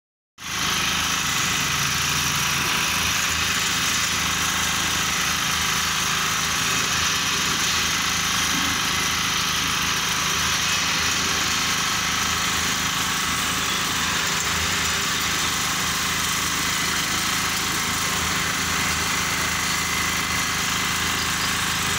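Engine-driven portable drum concrete mixer running steadily at a constant speed.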